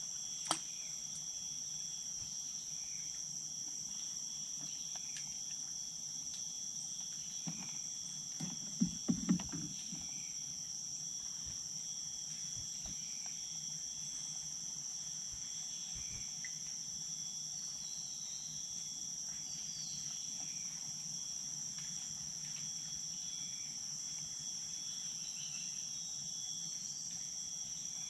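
Rainforest insects droning steadily in several layered high-pitched tones. A sharp click sounds about half a second in, and a quick cluster of three low knocks comes around nine seconds in.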